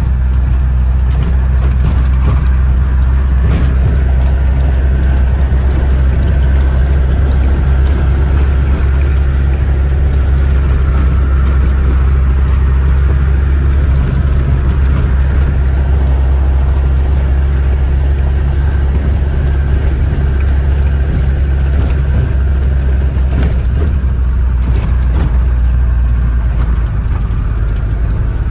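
Land Rover Defender Td5 five-cylinder turbodiesel driving along at a steady pace, a loud, even low drone of engine and road noise heard from the cab with the bonnet off. The engine, just rebuilt after a blown head gasket, is running nicely.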